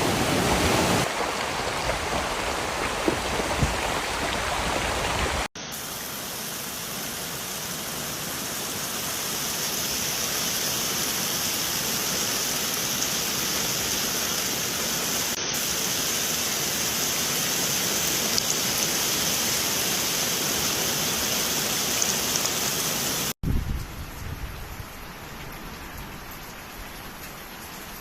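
Steady rain with running water, in three edited takes: a fuller rush of water for the first five seconds or so, then an even hiss of rainfall, then quieter rain after a cut near the end.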